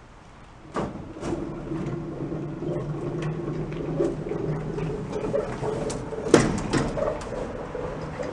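Aluminum jon boat being winched up onto its trailer with a hand-cranked trailer winch: a steady rumbling scrape of the metal hull sliding up the trailer, with clicking from the winch, starting about a second in and with a sharp clank near the end.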